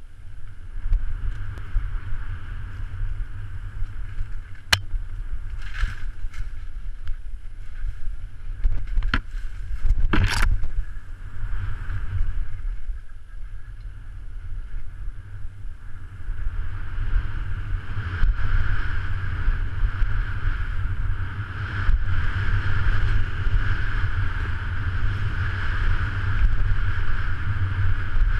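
Mountain bike rolling fast down a dirt singletrack: tyres on dirt and wind buffeting an action camera's microphone make a steady low rumble and hiss that grows louder in the second half. A sharp knock comes about five seconds in and a louder rattle about ten seconds in.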